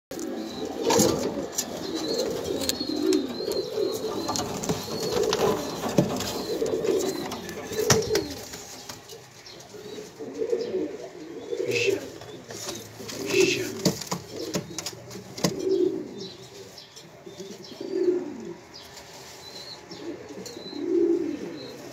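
Argovien white-tailed pigeons cooing: low rolling coos run close together for the first eight seconds or so, then come about every two seconds. Scattered sharp clicks and scuffs are heard among them, loudest about a second in and around eight seconds.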